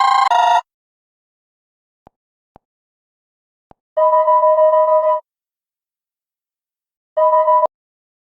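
Android 10 ringtones playing: a short pulsing electronic ring cuts off just after the start, then after a few faint clicks a two-tone ring sounds for about a second, and a shorter burst of the same two tones comes near the end.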